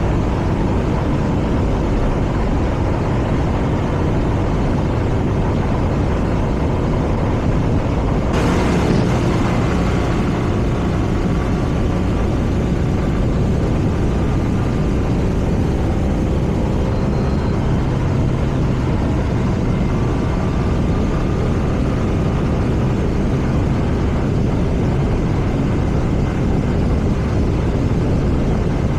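BMW R nineT's air/oil-cooled boxer twin running steadily while riding, with wind and road noise; a brief rush of noise comes about eight seconds in.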